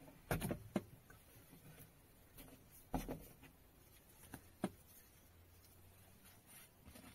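Several sharp plastic clicks and knocks as a compact dash cam is unclipped from its windshield mount and handled.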